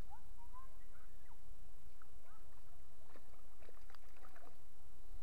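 River water flowing and gurgling around a wading angler: a steady low rumble with many short, scattered chirpy gurgles.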